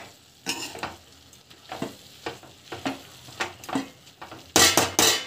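A spatula stirring and scraping vegetables and greens as they sauté in a kadai over a low sizzle, in irregular strokes about two a second. Near the end comes a louder, longer flurry of stirring.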